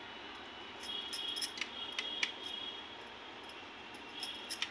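Metal fork tines clicking lightly as a peeled boiled egg is pricked with holes. Several sharp little ticks come about a second in and again near the end.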